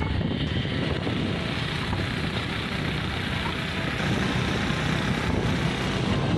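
Motorcycle running steadily as it rides along a street, heard from the pillion seat.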